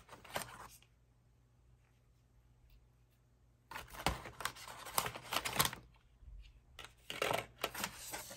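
Packaging and cosmetics being rummaged through by hand: after a few quiet seconds, two bursts of rustling with light clicks and taps.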